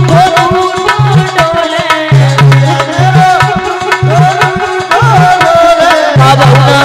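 Bhajan music with quick hand-drum strokes, deep bass thuds about once a second, and a wavering melody line above.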